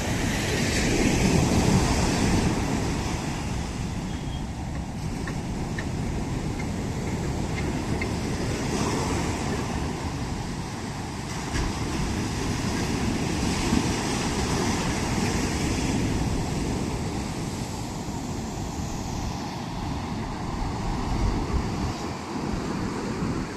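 Sea waves breaking and washing up the shore: a continuous rushing rumble that swells and eases every few seconds, with wind buffeting the microphone.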